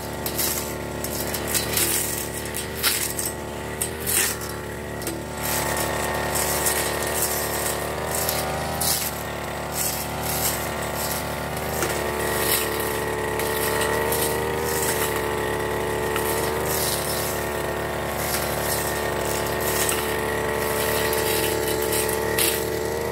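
Backpack brush cutter's small petrol engine running, its speed rising and falling as the throttle is worked while the cutting head slashes grass and brush. Sharp clicks and rattles are heard over the first few seconds.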